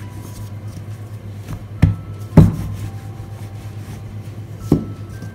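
Rolling pin working a round of paratha dough on a floured wooden board, with three sharp knocks as the pin clacks against the board, the loudest about halfway through.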